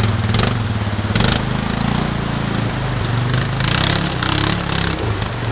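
Suzuki ATV engine running under load as the quad crawls over rocks in a creek bed, its pitch rising about a second in and then holding steady.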